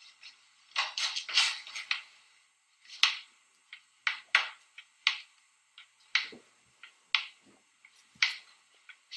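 Dishes and utensils clinking and clattering in short, sharp knocks: a quick run of clatters about a second in, then single clinks spaced out after that.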